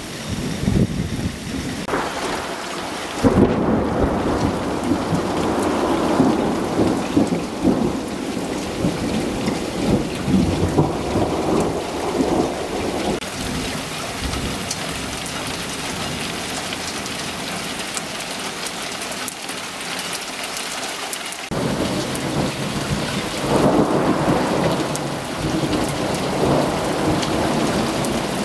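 Heavy rain falling steadily, with long rolling rumbles of thunder. The thunder swells about three seconds in and again near the end.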